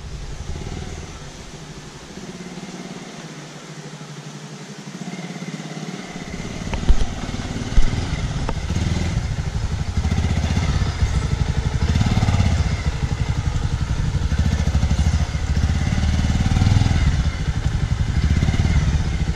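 Motorcycle engine running slowly and growing louder as the bike is ridden across a wooden plank bridge towards the listener, with two sharp knocks about seven and eight seconds in.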